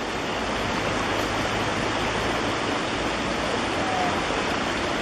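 Floodwater pouring over an overflowing low bridge: a steady, heavy rush of churning water.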